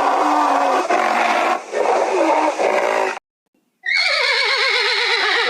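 Loud animal calls, several pitched cries overlapping. After a sudden break of about half a second, one long call comes in that falls in pitch with a quavering wobble.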